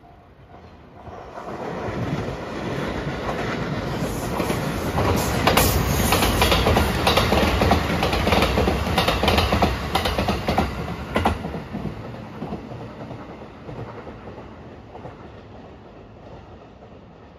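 Electric multiple-unit passenger train passing close by at speed, its wheels clattering over the rail joints. The sound builds from about a second in, is loudest in the middle with a run of sharp clacks, then fades away.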